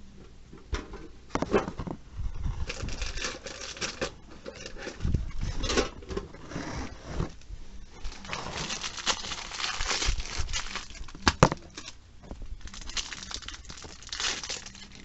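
Plastic wrapping and foil trading-card booster packs crinkling and tearing as they are handled and ripped open, in irregular bursts, with one sharp click about two-thirds of the way through.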